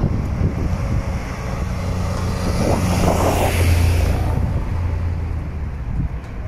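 Street traffic noise: a motor vehicle's engine hum under road noise, swelling as a vehicle passes close about three seconds in.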